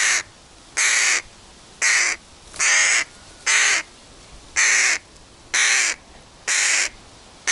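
Hooded crow fledgling cawing over and over, eight loud calls about a second apart.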